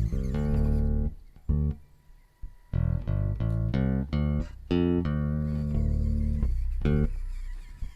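Bass guitar music: a line of plucked notes, with a short pause about two seconds in.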